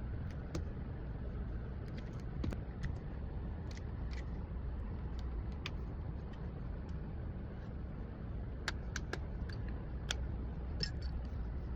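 Scattered light clicks and taps of small parts and tools being handled during a phone repair, a few at a time with a brief cluster near the end, over a steady low rumble.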